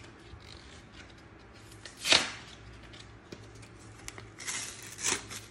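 Cardboard-and-plastic blister packaging of a Pokémon promo card being pulled open by hand: one short loud tear about two seconds in, then paper rustling and crinkling near the end.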